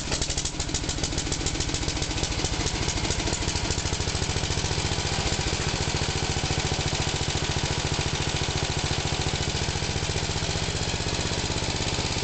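Diesel engine idling steadily, with fast, even knocking pulses.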